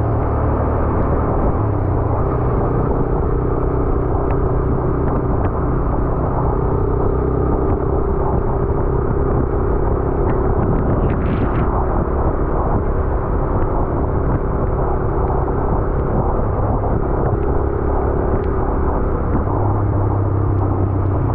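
Vehicle engine running steadily on the move, with wind and road noise. A short high-pitched beep sounds about eleven seconds in.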